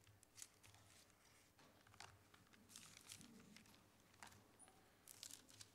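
Faint paper rustling and soft ticks, scattered through a few seconds with a cluster near the end, over a low steady hum: pages of a Bible being leafed through to find a passage.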